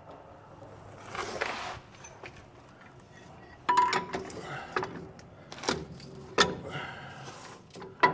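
New air-brake shoes being handled and set onto the axle's brake backing plate and S-cam. There is soft scraping, then about five metallic clinks and knocks, the first with a brief ring.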